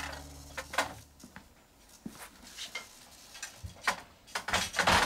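Office door being opened: scattered light clicks and knocks from the handle and door, with a louder cluster of knocks near the end.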